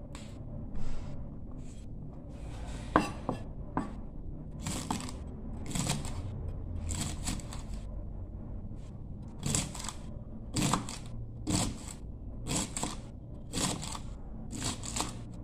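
Kitchen knife slicing long green beans on a wooden chopping board: crisp cuts, each with a knock of the blade on the board, coming about once a second in the second half.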